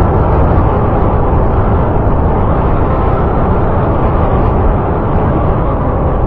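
Synthetic kaiju monster sound effect: a loud, steady, rumbling roar, heavy in the low end, without a clear pitch.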